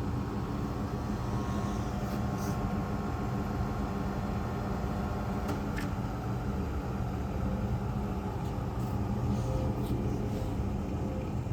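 Rapid plastics grinder running on a test run: a steady motor hum with a few faint clicks scattered through it.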